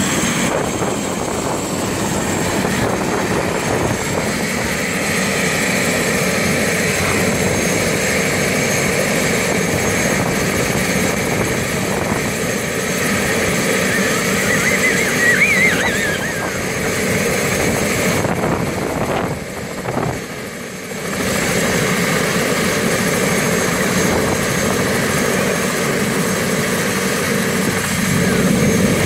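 Firefighting helicopter running on the ground, its turbine engine and turning main rotor making a steady, loud sound that dips briefly about two-thirds of the way through.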